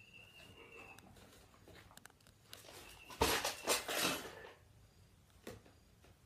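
Plastic toy bucket tipped over by a toddler, clattering against toys and a tile floor: a short burst of light knocks and rattles lasting about a second, a little past the middle, with smaller toy knocks around it.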